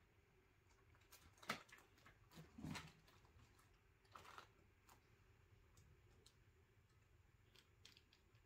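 Near silence with faint, scattered taps and a soft thump: a cat's paws stepping across the wooden top of an upright piano among sheet-music books, with a sharper tap about a second and a half in and a brief rustle a little later.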